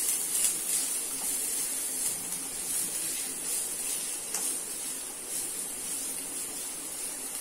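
Chopped onion sizzling in hot oil in a kadhai as it is stirred with a spatula: a steady high hiss that eases slightly toward the end. The onion is being sautéed just until it loses its raw edge.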